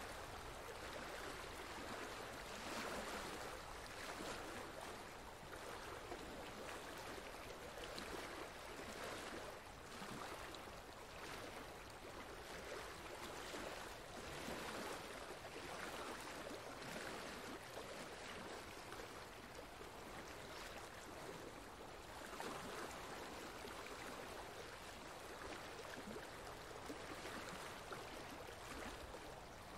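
Faint, steady rush of flowing water, like a stream, swelling and easing every few seconds.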